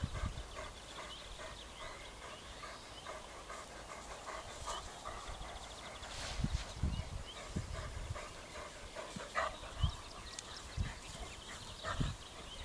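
Puppies play-fighting on grass, panting, with several dull thumps in the second half.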